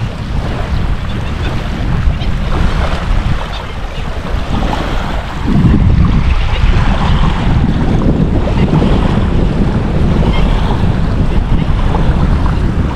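Strong wind buffeting the microphone, with small waves lapping at the lake shore; the wind gets louder about halfway through.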